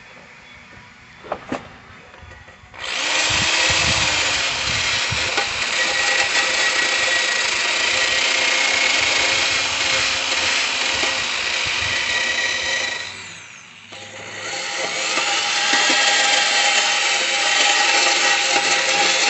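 A power-driven wire brush scrubbing burrs off the cut edges of a soft steel lawnmower deck. After a few light knocks it starts about three seconds in, runs loud and steady, drops off briefly about two thirds of the way through, then carries on.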